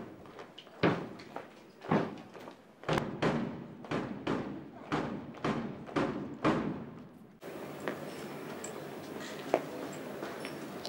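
A marching drum beating time in sharp, regular strokes, about one a second and then about two a second, until it cuts off about seven seconds in and a steady background hum remains.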